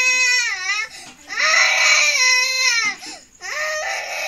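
Baby crying in long loud wails, each dropping in pitch at its end, with short breaths between them; three wails in all.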